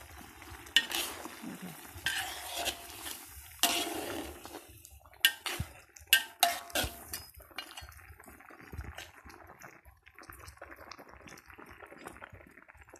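Metal spatula stirring a simmering curry in a wok, scraping and clinking against the pan. The scrapes and knocks come thick and irregular at first, then grow quieter and sparser over the last few seconds.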